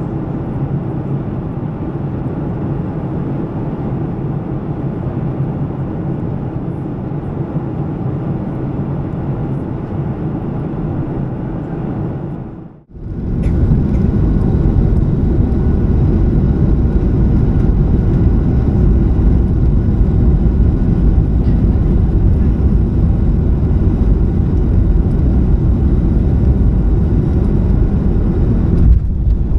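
Cabin noise of a Boeing 737-700 heard from a window seat beside its CFM56 engine: a steady jet rumble and airflow roar during descent. After a sudden break it comes back louder and deeper on final approach, with a brief jolt near the end as the wheels touch down.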